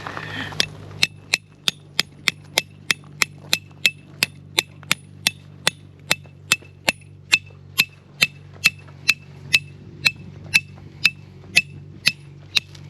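Steady hammering, about three strikes a second, each blow with a short metallic ring: a hammer driving tent pegs into the ground.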